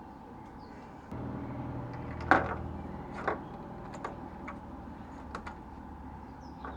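Scattered light clicks and taps from handling the headlamp bulb and its clip-in housing, the sharpest about two seconds in. Under them a low steady hum starts about a second in.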